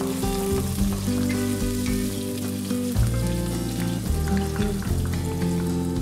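Hot oil sizzling in a nonstick kadai as a tempering of lentils, cashews, green chilli and ginger fries and is stirred with a wooden spatula. Background music with long held notes plays over it.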